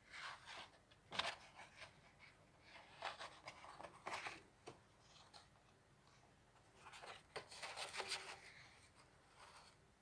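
Faint paper rustling as the pages of a coloring book are handled and turned, coming in short bursts of crinkling and soft clicks, loudest about a second in and again around seven to eight seconds in.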